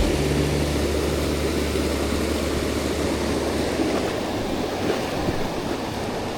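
Steady rushing of river water, an even low noise that eases slightly toward the end.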